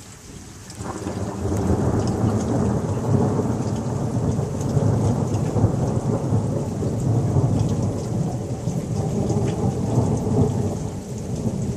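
A long, deep roll of thunder that starts about a second in and keeps rumbling, over the steady hiss of heavy rain.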